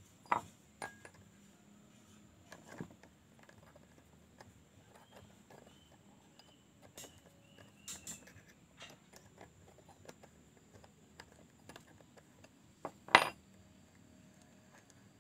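Scattered light clicks and metallic clinks of tools and small parts being handled, with a sharper knock about thirteen seconds in.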